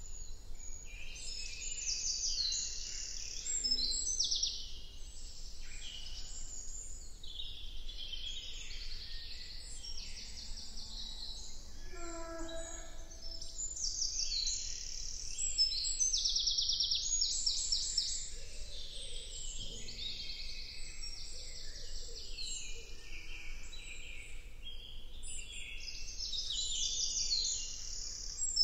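Woodland birdsong: many birds singing at once, with overlapping high songs and fast trills throughout, and a lower call about twelve seconds in.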